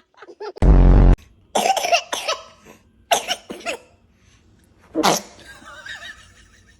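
A baby sneezing and coughing: several short sneezes, with a sharper sneeze about five seconds in. A very loud, distorted half-second blast comes about half a second in.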